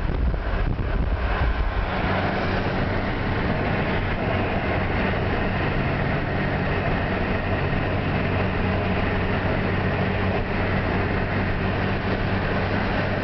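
Steady road and engine noise inside a moving car: tyre and wind rush with a low engine hum. For the first couple of seconds, wind gusts heavily on the microphone, then the noise settles to an even rush.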